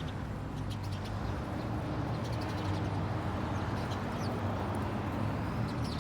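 A large flock of small birds calling in a bush: many short, high chirps overlapping throughout, over a steady low motor hum.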